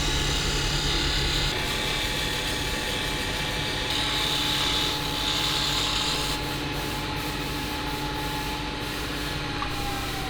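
A woodworking machine running with a steady motor hum while wood is sanded against it, a hissing rub that grows stronger and weaker in stretches. Near the end the machine's tone begins to fall as it spins down.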